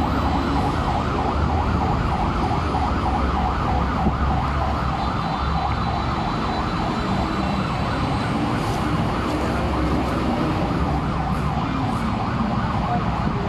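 An emergency vehicle's siren wailing in a fast repeating yelp, about three cycles a second, fading out about five seconds in, over the steady low rumble of vehicle engines.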